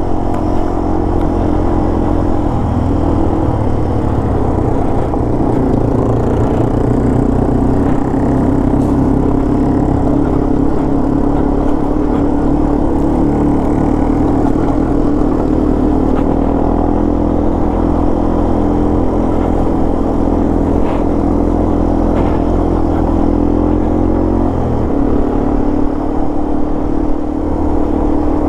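Yamaha TW200's small single-cylinder four-stroke engine running steadily under way. The engine note dips briefly about two and a half seconds in and again near the end.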